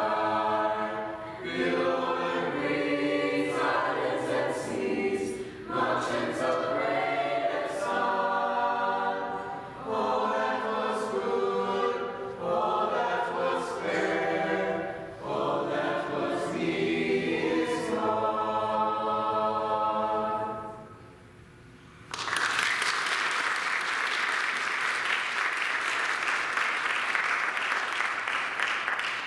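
Mixed-voice madrigal choir singing unaccompanied, the piece closing about 21 seconds in. After a brief pause the audience bursts into applause for the last seven seconds.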